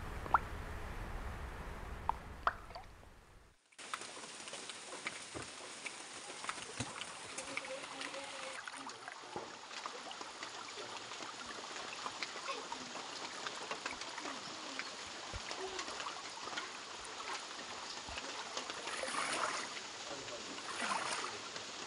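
Steady rain falling on bamboo, leaves and pond water, a constant hiss dotted with the taps of single drops. The sound fades out and cuts back in about three and a half seconds in.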